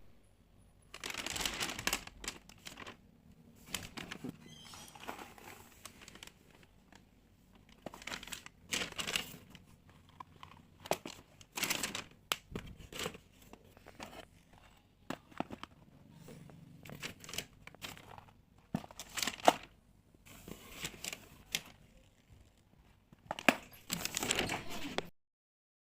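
Packaging of a building-block set being handled and torn open: irregular bursts of crinkling and tearing with short pauses between them, stopping abruptly about a second before the end.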